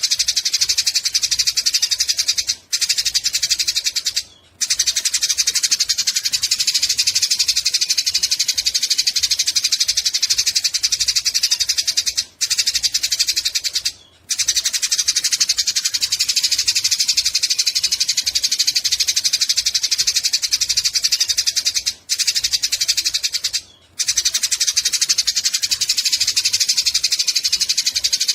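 Eurasian tree sparrows chattering in a fight, a dense, rapid stream of harsh chirps with a few short pauses.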